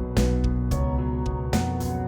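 Background music: a beat with held chords over a strong bass, with percussion strikes about every half second.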